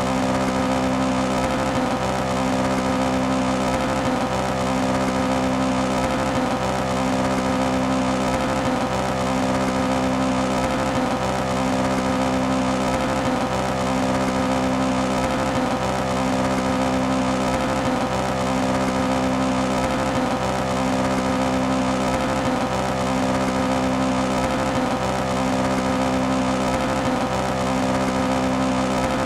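Toyota AE86 engine running at a steady speed, not revving, its note breaking up in a regular stutter about every two seconds, which the title gives as a misfire at high rpm.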